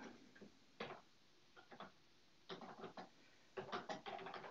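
Faint keystrokes on a computer keyboard: a single tap, then short flurries of typing with pauses between.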